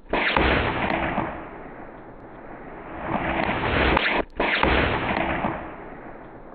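Shot from a GAMO TC35 .357 big-bore PCP air rifle, heard as a dull, muffled boom and rush with no crisp highs. It swells and fades three times, breaks off briefly and starts again about four seconds in, then stops suddenly.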